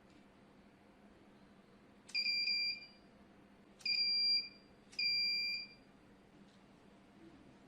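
Electronic buzzer of a DIY fire alarm beeping three times with a steady high tone, each beep about half a second long and starting with a short click. It is the alarm going off as the flame sensor module detects a flame under test.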